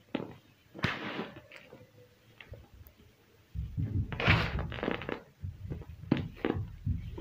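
Hands crushing and crumbling dyed black gym chalk and cornstarch chunks: soft, gritty crunches and powdery crumbling with small clicks. The crunching gets heavier and more continuous from about three and a half seconds in.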